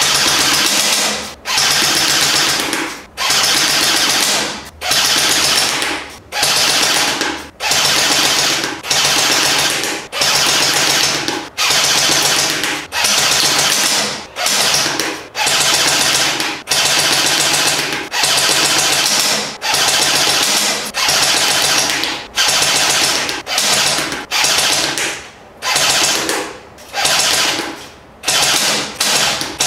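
Game Face GF460 electric airsoft rifle firing on full auto in repeated short bursts of about a second each, with brief pauses between them: the rapid buzzing cycle of its metal gearbox.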